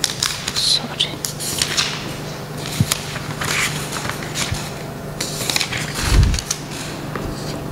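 Paper rustling and small knocks of handling picked up close on a handheld microphone, with a dull bump about six seconds in, over a steady low hum from the sound system.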